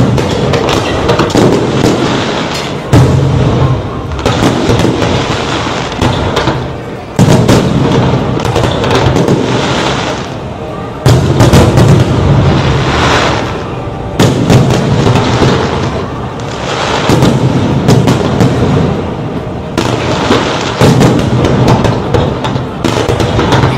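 Fireworks display: loud booms every few seconds, each followed by crackling.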